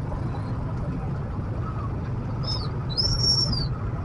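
A steady low rumble, with two high whistling chirps: a short one about two and a half seconds in and a longer, louder one at about three seconds.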